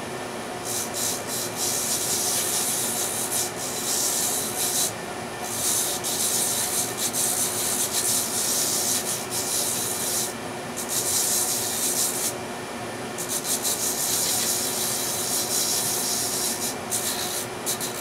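Small bench-mounted drum sander running with a steady motor hum, its spinning sanding drum hissing against wood in four long passes with short breaks between them, as a tight inside corner of an intarsia piece is rounded over.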